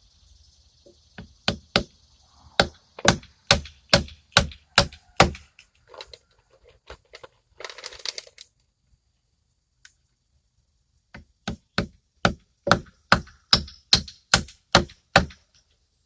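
Hammer driving nails into wood: two runs of about ten steady blows, roughly two a second, with a few seconds of lighter knocks and a brief scrape between them.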